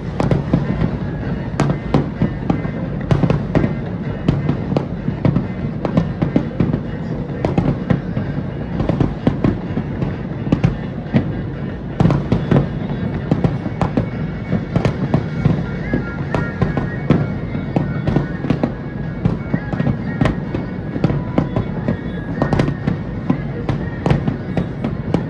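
Aerial firework shells bursting in a rapid, irregular barrage of bangs over a continuous low rumble.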